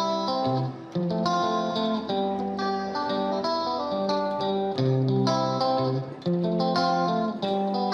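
Background music: a melodic plucked-guitar tune with a steady rhythm of picked notes.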